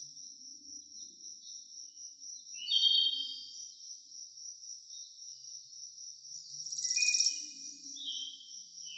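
A steady high-pitched chorus of insects such as crickets, pulsing without a break, with birds chirping loudest about three seconds in and again around seven seconds.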